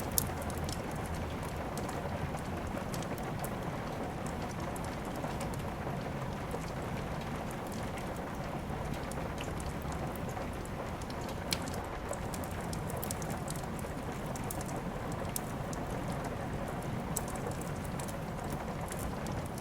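Steady rain falling, with a wood fire crackling: scattered sharp pops, the loudest just after the start and about halfway through.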